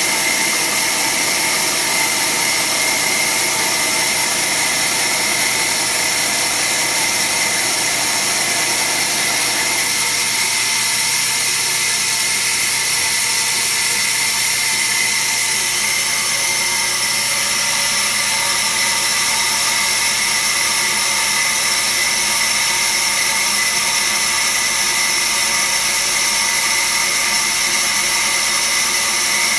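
Automatic band saw running: a steady mechanical whine with a high hiss. About ten seconds in, the lower part of the sound drops away while the whine carries on.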